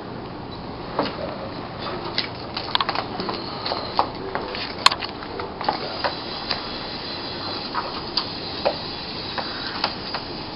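Irregular plastic clicks and knocks as LEGO sumo robots are handled and set down on the arena board. From about halfway in, a steadier mechanical whir of the robots' LEGO motors and gears joins them.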